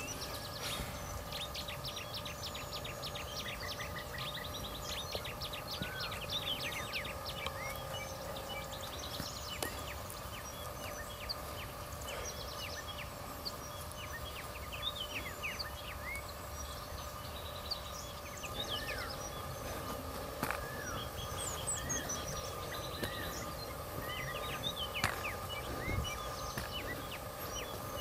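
Several wild birds chirping and calling in quick, short notes throughout, over a steady faint hum and a low background rustle.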